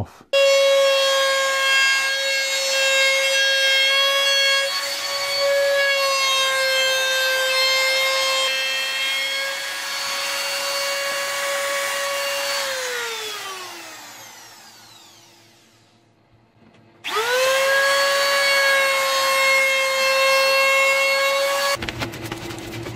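Handheld trim router running at full speed with a steady high whine while trimming the edge of a cast epoxy resin tabletop. About 12 seconds in it is switched off and spins down with a falling whine. About 17 seconds in it starts again, rising quickly to speed, and it runs until it stops a second before the end.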